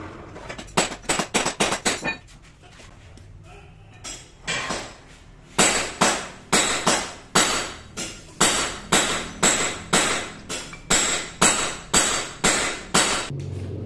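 Hammer striking metal: a quick flurry of about seven blows, then, after a pause, a steady run of blows about two a second, each with a short metallic ring.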